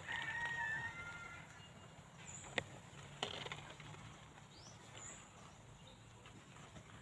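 A rooster crows once at the start, a call of about a second and a half. A sharp tap and a brief rustle follow a couple of seconds later.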